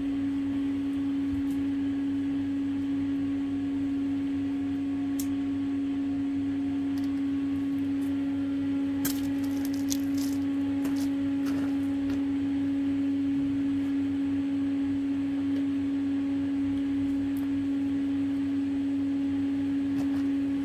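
Self-shielded flux-core arc welding with Lincoln NR-211 5/64-inch wire on structural steel: a steady hiss under a loud, constant hum, with a few sharp clicks about nine to ten seconds in.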